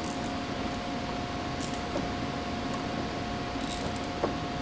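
Plastic cable tie being pulled tight around rubber fuel hoses, giving a few short plastic clicks and a quick run of ratchet clicks near the end, over a steady hum of room noise.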